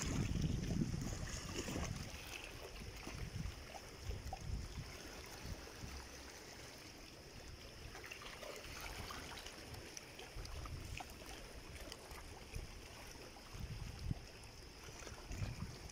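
Small sea waves lapping and sloshing against a rocky shore, with water fizzing and trickling among the rocks. A low rumble is loudest in the first two seconds, then softer surges come and go.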